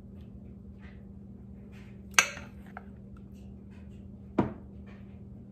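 Measuring cup knocking against the dishes while egg mixture is scooped from a glass measuring jug into a muffin tin: two sharp clinks about two seconds apart and a few faint taps, over a steady low hum.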